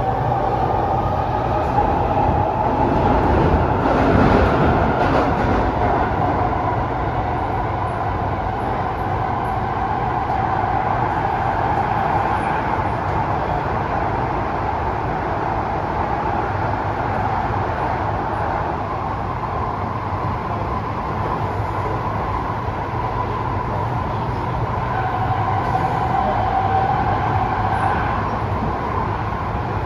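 Cabin noise of an SMRT C751B metro train running at speed: a steady rumble of wheels on rail with a continuous whine, stronger for a few seconds near the end.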